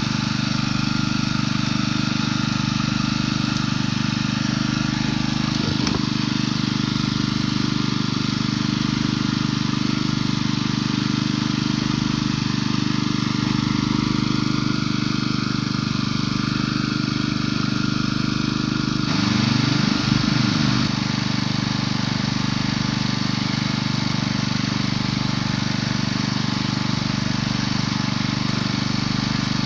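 A small engine running steadily, with a brief change in pitch about two-thirds of the way through.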